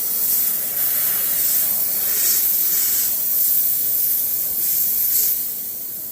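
Jeweler's steam cleaner blasting a jet of steam onto a ring: a steady loud hiss that swells several times as the jet is worked over the piece.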